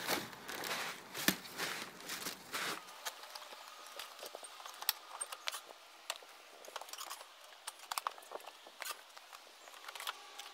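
Handling noises: rustling for about the first three seconds, then scattered light clicks and knocks as the quad's seat is unlatched and lifted off.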